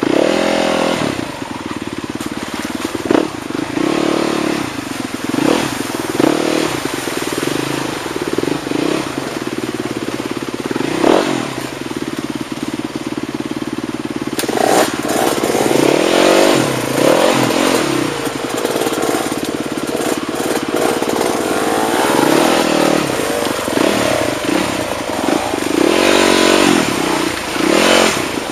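Rocky mountain stream rushing and splashing over stones, a loud, steady wash of water with irregular gurgling surges.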